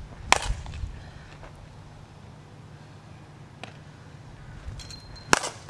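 Softball bat hitting pitched softballs: a sharp crack shortly after the start and another, the loudest, near the end, with a fainter knock in between.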